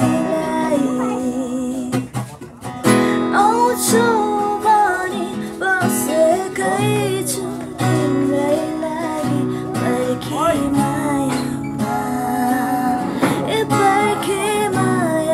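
A song: acoustic guitar strumming under a singing voice, with a brief drop in loudness about two seconds in.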